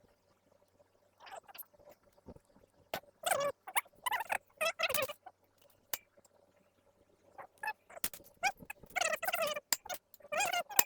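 Sharp metal clicks and taps mixed with short squeaky, ringing sounds from valve springs, retainers and locks being installed on an LS V8 cylinder head.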